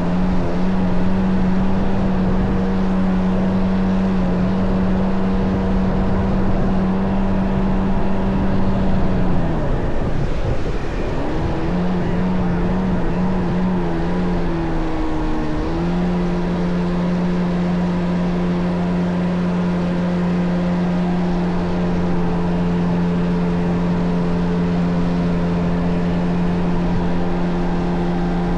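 Kawasaki JS550 stand-up jet ski with a swapped-in 650 two-stroke twin engine running at steady throttle. About ten seconds in the engine note drops away as the throttle eases off, wavers and dips again, then climbs back and holds steady.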